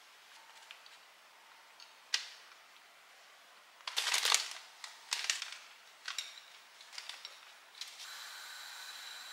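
Light clicks and knocks of things being handled in a kitchen, several in quick succession around the middle; near the end a steady hiss with a faint high whine sets in.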